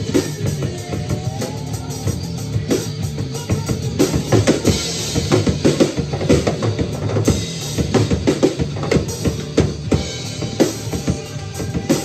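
Acoustic drum kit played with sticks: fast kick, snare and cymbal strikes in a steady rock groove, over a recorded rock song playing along with it.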